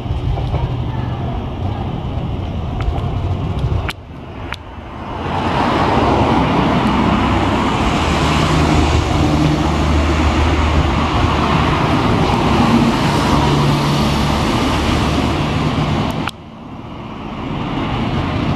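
Road traffic on a city street, with cars and vans passing close by. Under it, a Hankai Tramway Mo 501-class streetcar approaches along the street track. The traffic noise is loudest from about five seconds in until near the end, and the sound drops sharply for a moment about four seconds in and again near the end.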